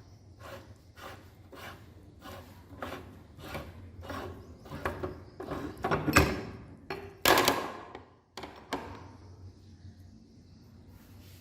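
Meat grinder at work: a regular series of knocks and crunches, about one every half to two-thirds of a second, growing louder, with the loudest crunches about six and seven seconds in before it dies away.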